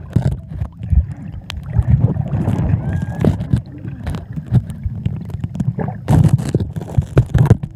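Sea water heard through the microphone of a phone lying underwater: a muffled low rumble of moving water with frequent irregular knocks and clicks.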